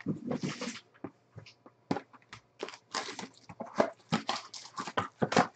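Foil-wrapped trading card packs crinkling and a cardboard box being handled: irregular short rustles and crackles.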